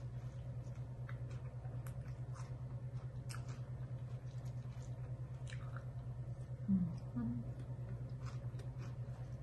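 Close-up chewing and crunching of a raw salad, with scattered short crisp crunches over a steady low hum that pulses evenly.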